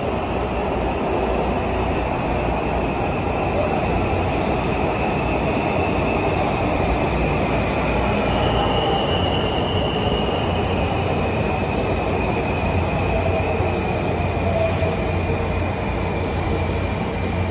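Washington Metro 3000-series subway train arriving at an underground station and slowing along the platform. It makes a steady rail rumble with a high whine over it.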